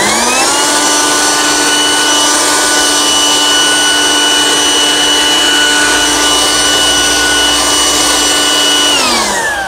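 Kaltmann Titanium KTI-ODL2X20V cordless brushless leaf blower (40V from two 20V batteries) running. Its fan whine rises as it finishes spinning up, holds steady over a strong rush of air, then falls away as it winds down near the end.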